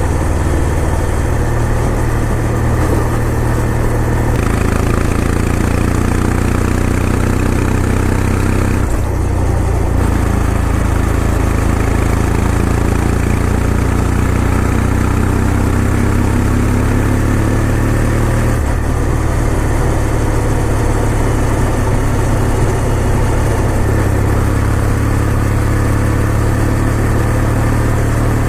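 Kawasaki W800's air-cooled parallel-twin engine running while the bike is ridden, steady and loud. Its pitch climbs and drops back twice, about a third and two-thirds of the way through, like gear changes.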